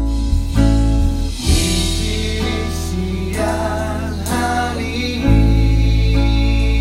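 An acoustic band playing a song at a sound check: plucked guitar over a heavy bass line that changes note about once a second, with a singing voice.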